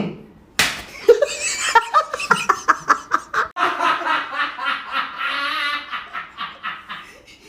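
People laughing hard in rapid bursts of cackling and giggling, with a sharp change partway through.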